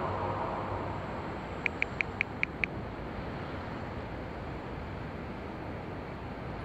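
Steady hiss of distant city traffic, with the tail of a soft ambient music track fading out at the start. About two seconds in, a quick run of six short high-pitched beeps lasting about a second.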